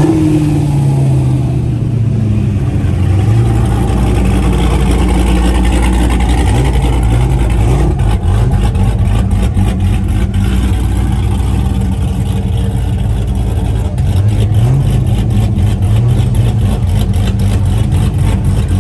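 Car engine running loudly, its note falling at the start and then rising and falling several times as it is revved.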